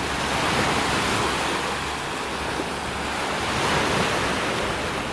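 Sea waves washing onto the shore, swelling twice, with wind rumbling on the microphone.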